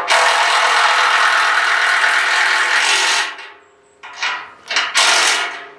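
Cordless impact wrench hammering bolts down, running continuously for about three seconds, then two or three short blips near the end. The bolts are being run down snug but not yet torqued.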